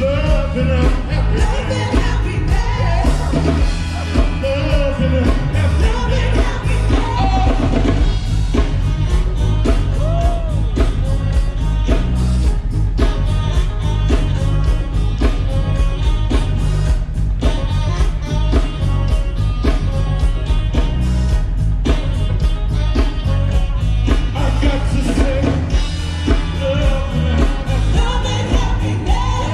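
Band music with a singing voice over a drum kit and a heavy, steady bass line, loud and continuous.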